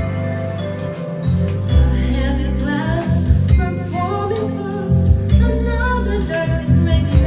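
A woman sings into a karaoke microphone over a backing track with a prominent, repeating bass line.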